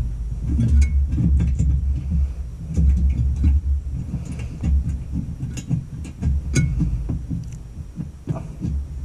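Hands working a bolt on a lawn tractor's exhaust: scattered small metallic clicks and taps, the sharpest about a second in and twice more past the middle, over an irregular low rumble.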